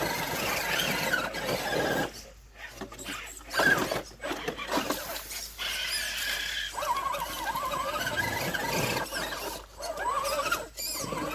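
Electric motor and gear whine of an RC rock crawler driving through a stream, the pitch rising and falling with the throttle.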